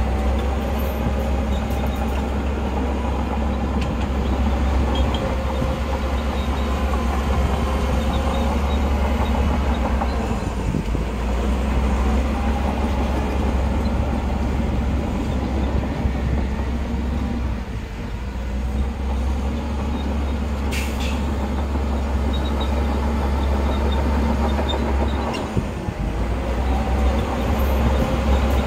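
Heavy diesel earthmoving machinery working, with a loud steady deep rumble that dips briefly a few times, and a single sharp click about three-quarters of the way through.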